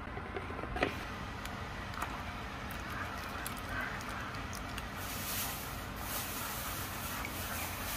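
Wooden spatula stirring thick tomato-cream gravy in a pot on a gas stove, with a knock about a second in and small scraping clicks, over a steady low rumble; a brighter hiss comes in about halfway through.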